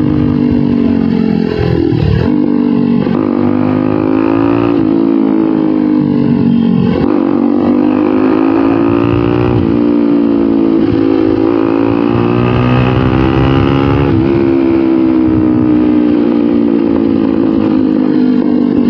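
A Bajaj Pulsar NS200's single-cylinder engine running loud through an aftermarket SC Project slip-on exhaust as the bike is ridden. The engine note climbs and then drops back sharply several times, with throttle and gear changes.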